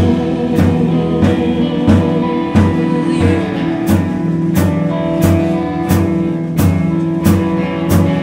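Folk-rock band playing live without vocals: sustained instrument chords over a steady beat, with a percussion hit about every two-thirds of a second.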